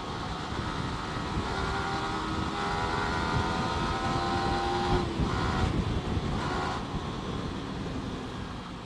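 Motorcycle engine accelerating, heard through a helmet-mounted mic under heavy wind rush. The engine note climbs steadily and breaks off about five seconds in.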